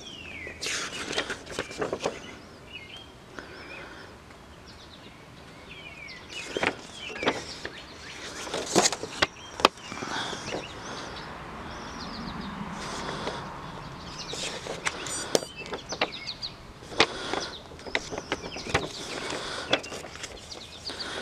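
Paper pages of a model kit's instruction manual being leafed through, rustling and flapping in irregular bursts. Birds chirp faintly in the background.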